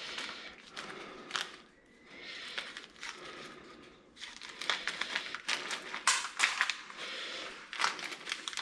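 Hand rummaging through a box of loose metal washers and small hardware: irregular small clicks and scrapes, some sharper than others.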